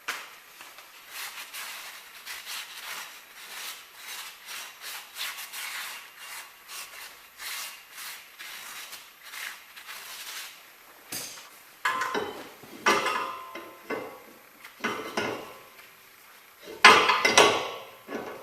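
Hand tools working metal wheel-hub parts: about ten seconds of quick scraping or rubbing strokes, then five or six sharp knocks, the loudest near the end.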